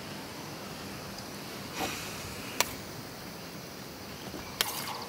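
Low, steady outdoor background ambience, with a short breathy sound about two seconds in, a single sharp click just after, and a few small clicks and a rustle near the end.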